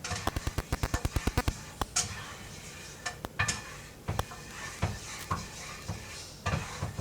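A utensil clicking and knocking against a pan as flour is stirred into hot oil for a roux: a quick run of about ten clicks a second at the start, then scattered single knocks.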